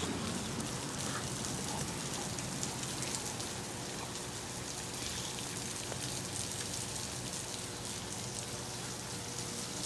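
Garden hose spraying a steady stream of water that splashes onto the grass and plants, an even hiss.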